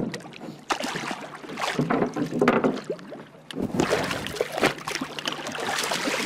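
Hooked conger eel thrashing at the sea surface, splashing and churning the water in irregular surges.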